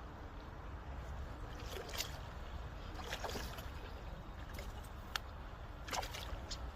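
Water sloshing with a few short splashes over a steady low rumble.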